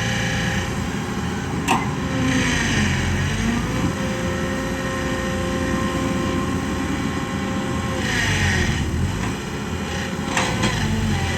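Kobelco SK120 Mark 3 excavator's diesel engine running under hydraulic load while digging and loading. Its pitch sags and recovers twice, with a hiss at each dip and sharp knocks about two seconds in and near the end.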